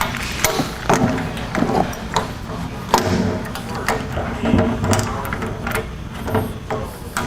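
Irregular clicks, knocks and handling noise as the hose, fittings and other parts of a drum vacuum system are pushed and fitted together.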